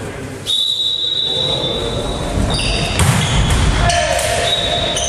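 Volleyball play in a sports hall: the ball struck with dull thuds about three seconds in, amid long high squeaks of sneakers on the wooden floor and some voices.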